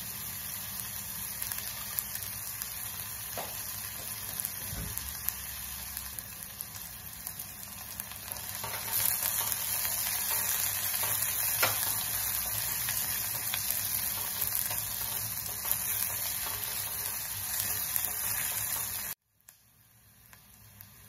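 Sliced onions and green chilli sizzling in hot oil in a pan while being stirred with a silicone spatula, with a few faint knocks. The sizzle grows louder about halfway through, then cuts off suddenly near the end.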